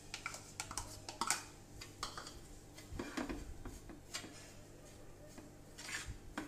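Spoon scraping and tapping against a pan as jaggery powder is stirred into ghee to melt, in faint irregular clicks and scrapes over a low steady hum.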